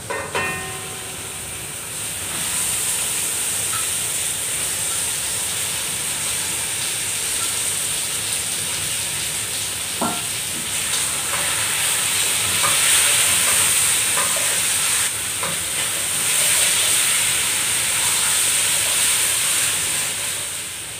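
Raw chicken pieces frying in hot oil with onions, sizzling steadily and growing louder about two seconds in, while a wooden spatula stirs them in the pot. A brief ringing clink at the start, and a sharp knock about ten seconds in.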